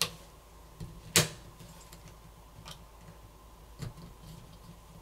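A few sharp, separate clicks as a plastic pry pick levers the snap-in cover off a smartphone's main board, its clips popping loose; the loudest comes about a second in.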